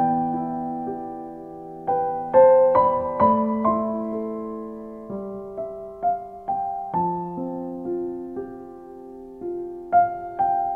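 Slow background piano music: single notes and chords struck one after another and left to ring and die away.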